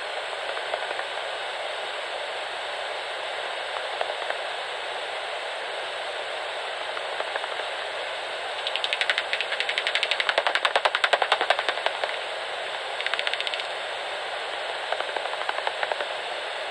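Bat echolocation calls made audible through a bat detector: a steady hiss, broken by a bat passing as a rapid run of clicks for about three seconds past the middle, then two shorter runs of clicks.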